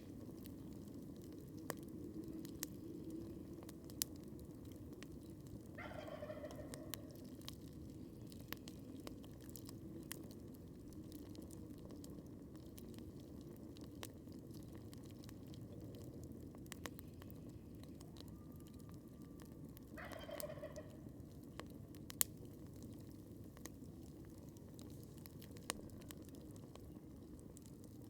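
A campfire crackling with scattered sharp pops over a steady low rumble, while a turkey gobbles faintly twice, about six seconds in and again about twenty seconds in.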